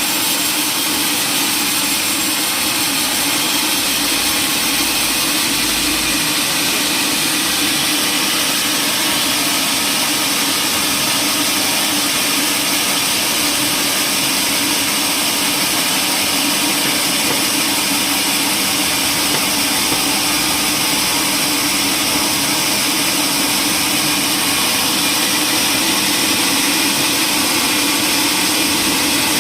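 Sawmill machinery running with a loud, steady, unchanging noise.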